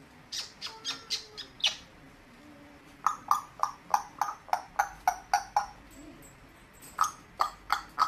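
An African grey parrot making runs of short, sharp clicking pops, about four a second, in three bursts with brief pauses between them.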